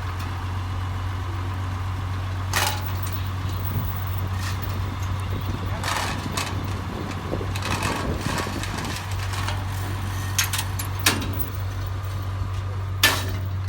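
A vehicle engine idling steadily, with voices and a few short sharp knocks over it, the loudest near the end.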